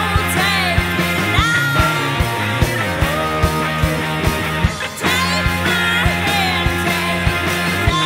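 Indie rock song playing: a band with a steady drum beat under sustained bass and guitar-like lines.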